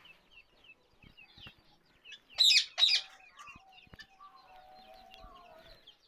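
Indian ringneck parakeet giving two loud, shrill calls about half a second apart, a little over two seconds in, over faint chatter of other birds.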